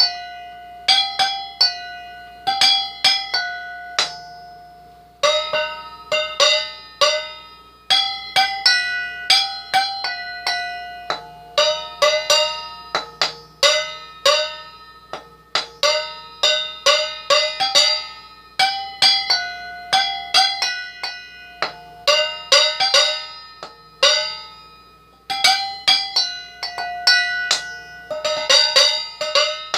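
Mixing bowls struck one after another, each ringing like a bell with its own pitch and dying away, played as a made-up tune at about two strikes a second.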